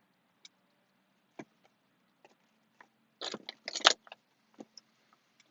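Scattered clicks and knocks of the recording phone being handled and propped in place, with a cluster of louder knocks about three to four seconds in.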